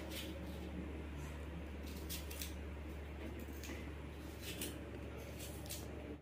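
Small knife cutting an onion held in the hand: irregular short crisp cuts over a steady low hum.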